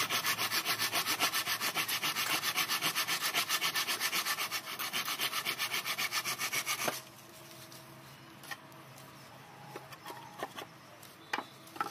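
Fast, even back-and-forth rubbing on a wooden plank, about seven strokes a second, which stops abruptly about seven seconds in. After that it is much quieter, with a few light clicks and taps while the plank is marked with a pencil.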